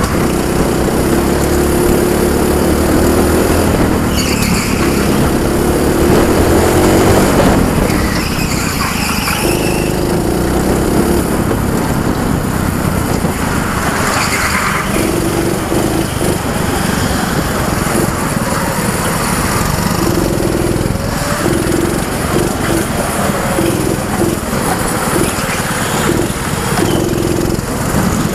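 Junior go-kart's small engine running hard, close up, its note repeatedly dropping away and coming back as the throttle is lifted and reapplied through the corners. A few brief higher squeals, tyres scrubbing in the turns.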